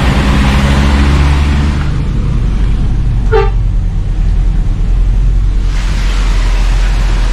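Bus diesel engine running with a steady low drone; its pitched note stands out for about the first two seconds, then settles into a rumble. A single short horn toot sounds about halfway through.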